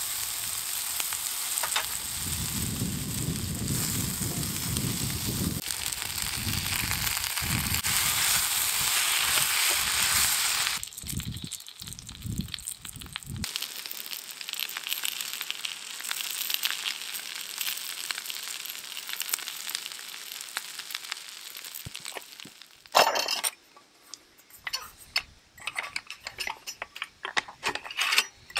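Horumon (offal) and then yakisoba noodles sizzling as they fry in a pan on a camp gas stove, loud for about the first ten seconds and quieter after. Near the end a sharp knock and a run of small metal clicks.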